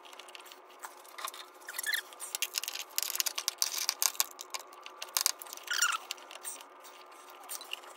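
A wrench clicking and scraping on metal, with hands working in the engine bay, while the old oil pressure sender is being loosened. The run of rapid clicks and scrapes is busiest in the middle.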